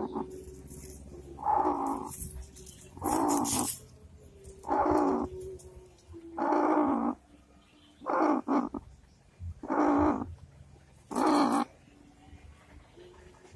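Broody hen sitting on her eggs growling at a hand near her head: a string of short, harsh calls about every one and a half seconds, with a low steady churr between them, the defensive warning of a sitting hen.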